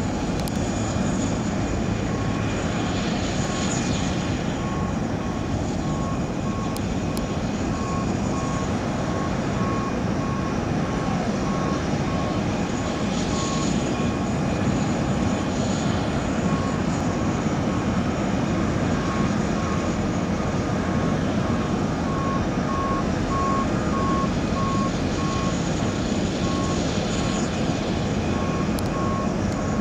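Steady drone of a Boeing 787-8 Dreamliner's engines during pushback, with a repeating electronic warning beep at about one beep a second that pauses briefly partway through.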